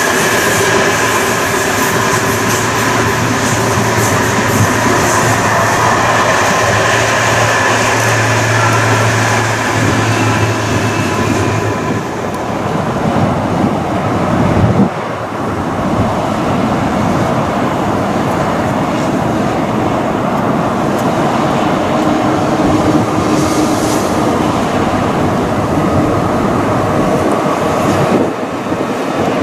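Freight train rolling past on the rails: a loud, steady rumble of wagons on the track with some thin whining tones. The sound changes abruptly about fifteen seconds in.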